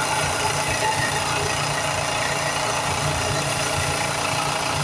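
A shop power tool running steadily, with a constant hum.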